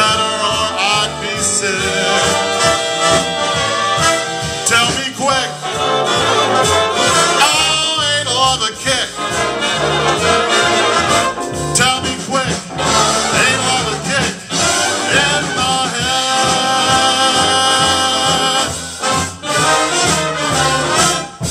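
Big swing band playing without vocals: saxophones, trumpets and trombones over a steady drum beat, with sharp accented hits near the end as the song reaches its close.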